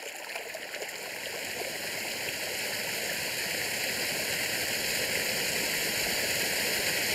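Water from a small waterfall pouring and splashing over rocks into a pool: a steady rushing that grows gradually louder.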